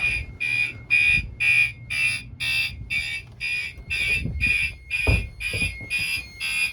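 Fire alarm horn sounding in short, evenly spaced high-pitched beeps, about two a second: the system is in alarm after its heat detector was tripped for testing. A few low thumps come in the second half.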